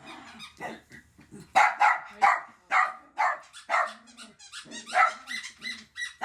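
Puppy barking in a run of short, sharp, high yaps, about two a second, getting louder after about a second and a half.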